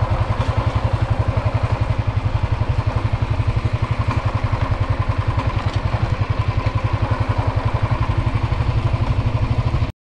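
An engine running steadily with an even, fast low throb of about ten pulses a second, the way a small engine idles. It cuts off suddenly near the end.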